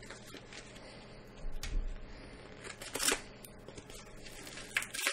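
Yellow paper postal mailer being torn open by hand, in a few short crackly rips, the loudest about three seconds in and two more near the end.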